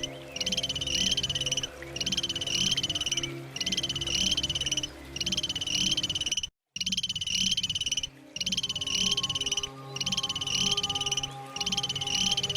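An animal's rapid buzzing trill, repeated in phrases of about a second with short breaks between them, over a lower pulsing chorus. The sound cuts out completely for a moment just past the halfway point.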